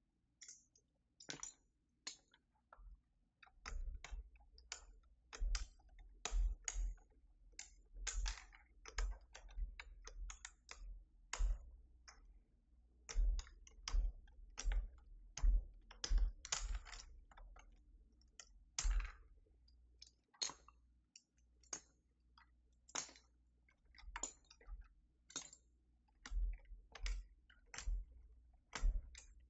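Irregular plastic clicks and clacks, one or two a second, as keycaps are worked off and onto the switches of a Keychron V6 Max mechanical keyboard. Many come with a dull knock as the key is pressed down.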